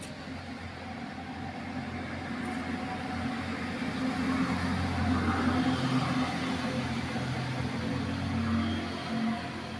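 A motor engine drones steadily, growing louder a few seconds in and easing off toward the end.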